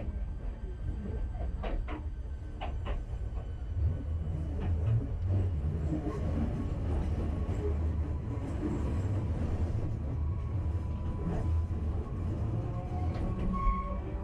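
Enoden electric train running on the track, heard from inside the cab: a steady low rumble with a few sharp clicks of the wheels in the first five seconds and a faint steady whine.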